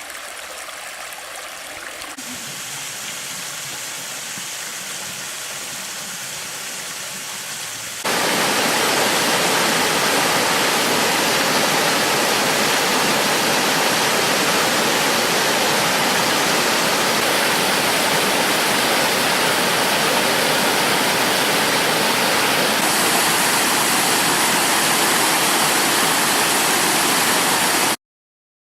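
Rushing water of a creek and waterfall: a steady hiss that jumps much louder about eight seconds in and cuts off abruptly near the end.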